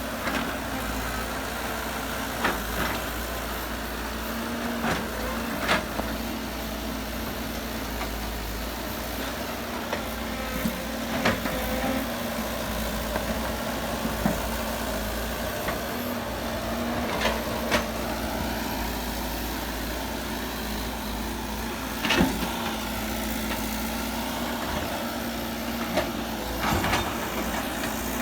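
Heavy diesel earthmoving machinery running steadily, with irregular sharp knocks and clanks every few seconds.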